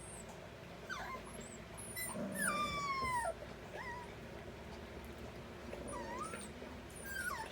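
Doberman Pinscher puppies whining: a series of high-pitched whimpers that fall in pitch. The longest is a drawn-out whine of about a second, a couple of seconds in.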